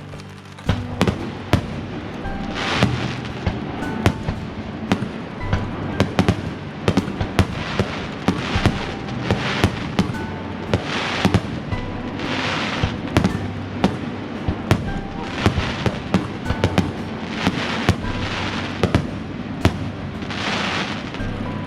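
Aerial fireworks bursting in quick succession: many sharp bangs, with several short spells of hissing crackle. Music with held notes plays underneath.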